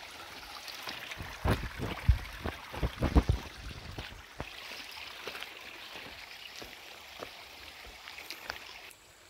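Footsteps on a rough, stony hill track over a steady hiss, with a run of heavy low thumps between about one and a half and three and a half seconds in.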